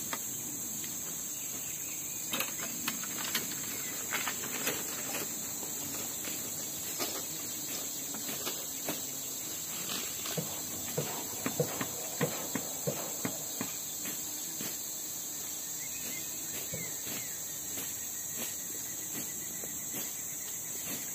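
Steady high-pitched drone of forest insects. Scattered light knocks and clicks sound over it, most of them in the middle of the stretch.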